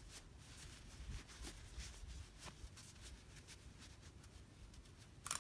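Faint rustling and soft ticks of a small batting-filled fabric tab being squeezed and turned by hand, with one short louder rustle near the end.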